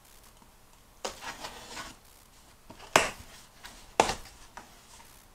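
A utility knife slitting the tape on a cardboard box with a scraping, rustling cut, then two sharp snaps about a second apart as the cardboard is pulled open.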